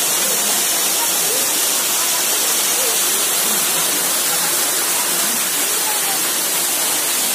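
Small waterfall splashing down over rocks into a pool: a steady rush of falling water.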